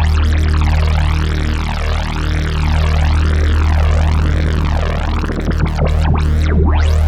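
Korg Polysix analog synthesizer holding a deep bass note, with a bright tone over it sweeping up and down about once a second in an even, repeating wah. Near the end the sweeps quicken and reach much higher.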